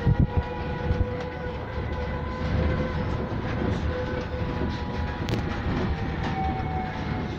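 Cabin noise inside a Safra Businova bus: the electric drive's steady whine of several tones, shifting slightly in pitch, over a low road rumble, with a few light rattles.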